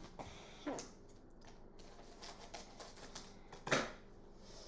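Plastic candy packaging being handled: a scatter of light crackles and clicks, with a sharper, louder crackle near the end.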